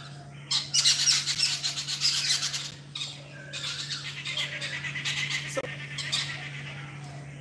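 Birds calling in a fast, harsh chatter: a dense run of quick high calls, broken by a short pause about three seconds in, with a faint steady low hum underneath.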